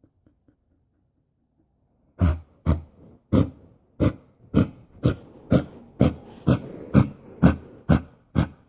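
Dog coughing in a fit: about a dozen short, sharp coughs, roughly two a second, starting about two seconds in.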